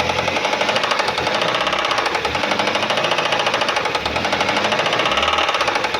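Four-cylinder car engine running with a rapid, steady metallic knock, which the mechanic takes for a piston knocking; the cause is a worn connecting-rod bearing on the fourth cylinder that has developed play.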